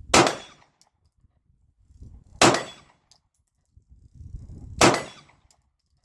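Three 9mm pistol shots from a Canik TP9SA Mod.2, evenly spaced about two and a half seconds apart, each a sharp crack with a short ringing tail.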